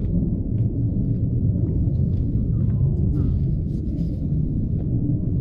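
Wind buffeting the microphone: a continuous low rumble that rises and falls, with a few faint light ticks above it.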